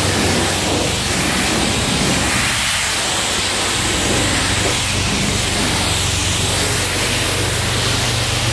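Self-serve car wash high-pressure wand spraying a jet of water onto a car's body panels: a steady, loud hiss of spray, with a low hum underneath.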